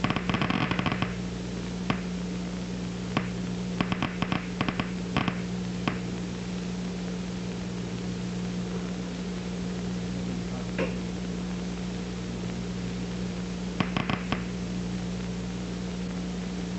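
Amplified recording of a single cat visual-cortex neuron played through a loudspeaker: a steady electrical hum and hiss broken by sharp pops, each pop one spike of the neuron. The pops come as a dense crackle in the first second and again around four to five seconds in, then stop for a long stretch with only one pop, and return in a brief burst near the end: the neuron fires when the moving bar of light falls at its preferred orientation and place.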